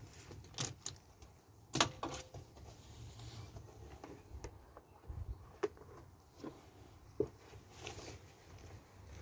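Scattered light clicks and clanks, like tools or parts being handled during car servicing, over a low steady hum. The loudest knock comes about two seconds in.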